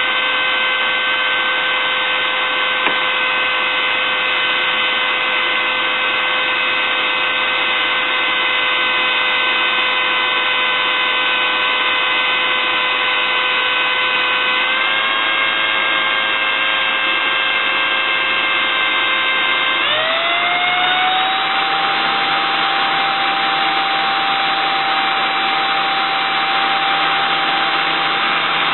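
Small electric motor running steadily with a whine, spinning a spool to wind fine magnet wire off a telephone bell's solenoid coil. Its pitch rises slightly about halfway through, then steps up clearly as the speed is raised about two-thirds of the way through.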